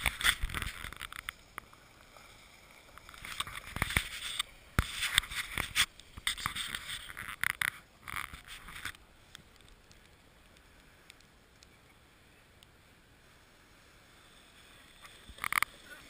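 Handling noise on the camera: irregular knocks and rustling over the first half, then a faint steady outdoor background, with a few more knocks near the end.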